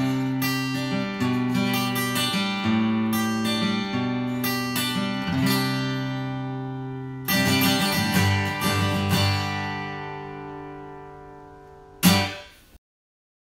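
Background acoustic guitar music: picked notes, a strummed chord about seven seconds in that slowly fades, then one last short strum near the end that cuts off to silence.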